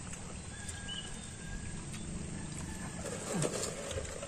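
Outdoor background with a steady low rumble, a few faint thin high chirps, and a brief louder sound with a quickly falling pitch a little past three seconds in.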